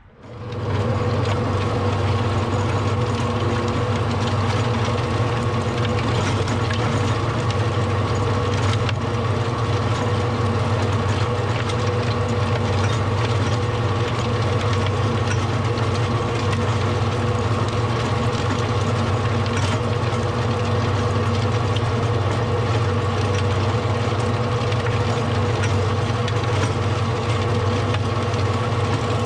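Tractor engine running under steady load and driving a 96-inch Taylor-Way rototiller, its gearbox and tines churning through soil. The sound is one continuous mechanical drone with a deep hum and a constant higher tone.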